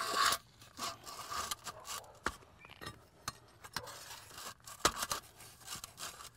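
Irregular scraping and light clicks as skylight roof flashing is shifted on asphalt shingles and a flat tool scrapes along its edge, dry-fitting it under the shingles.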